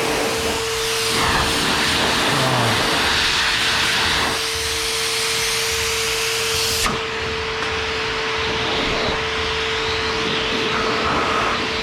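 Adam's Air Cannon dual-motor car dryer running, blowing a loud, steady rush of air with a constant motor whine through it.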